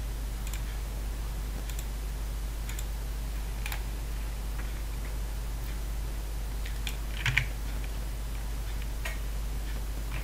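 Scattered single clicks of a computer mouse and keyboard, a few seconds apart, with a slightly louder cluster of clicks about seven seconds in, over a steady low electrical hum.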